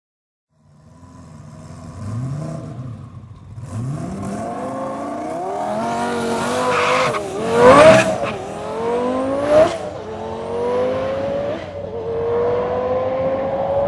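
Twin-turbo Lamborghini Gallardo's V10 revving at the line, then launching hard on a drag strip, the loudest moment at the launch about eight seconds in. Its pitch then climbs steadily through the gears, breaking at upshifts about a second and a half and three and a half seconds after the launch.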